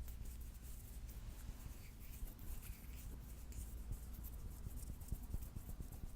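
Fingernails scratching a palm close to the microphone: a dense run of faint, quick scratchy ticks over a steady low hum.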